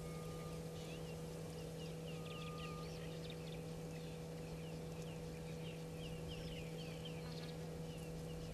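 Birds chirping with many short, high calls scattered throughout, over a steady low hum.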